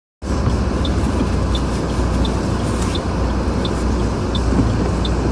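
Inside a car driving on a snowy road on studded tyres: a steady low rumble of road and engine noise that cuts in just after the start, with a light tick repeating about every 0.7 seconds.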